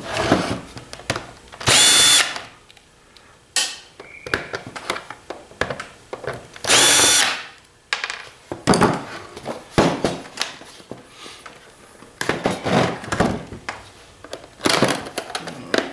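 Cordless drill/driver spinning twice in short bursts of about half a second each, a steady high whine, as it drives screws out of a CPAP machine's plastic housing. Clicks and knocks of plastic parts being handled come between the bursts.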